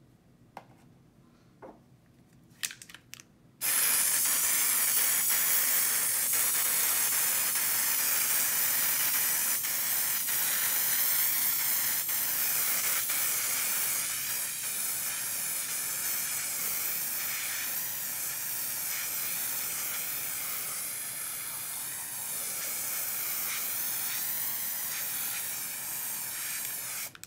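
Aerosol can of black spray paint hissing in one long continuous spray of over twenty seconds, starting about three and a half seconds in after a few faint clicks and cutting off just at the end.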